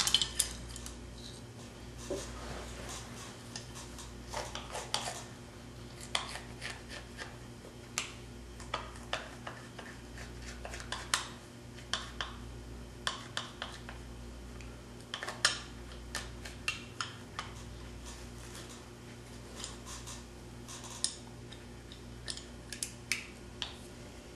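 A small knife and gloved hands working a mule deer cape while the ears, lips and nose are turned, making irregular small clicks and scrapes. The loudest click comes right at the start and another about fifteen seconds in, over a steady low electrical hum.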